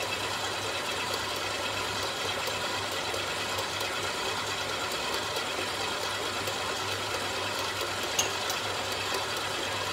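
Electric stand mixer's motor running steadily with a constant hum.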